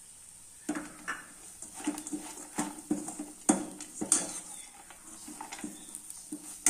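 A spoon scraping and knocking against a frying pan as a sticky mix of dates, nuts and raisins is stirred, in a run of irregular strokes starting about a second in.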